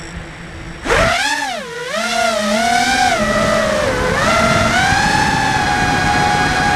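FPV racing quadcopter's brushless motors whining, starting suddenly about a second in and rising and falling in pitch with the throttle, then holding a steady high whine from about five seconds in.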